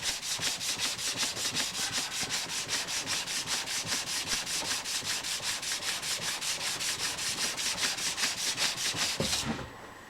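Sandpaper on a plastic sanding board rubbed back and forth by hand over a switch plate, in quick even strokes of about five a second, taking out surface scratches; the strokes stop near the end.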